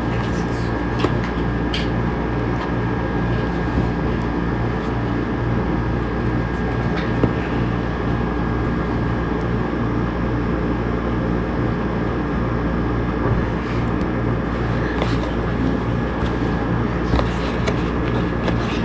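Steady hum with a thin high whine running under it, and scattered light clicks and taps as a black cardboard product box is handled and its lid opened.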